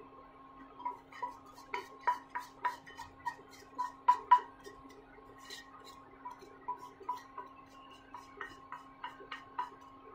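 A spatula tapping against the rim of a non-stick frying pan to knock the last fried shallots out: a run of sharp ringing taps, two or three a second, loudest about four seconds in, then a quieter run. A faint steady hum lies underneath.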